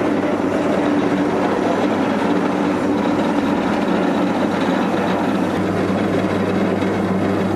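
Compact rice mill with rubber husking rollers running steadily while husking paddy into brown rice: an even mechanical whir with a steady hum underneath.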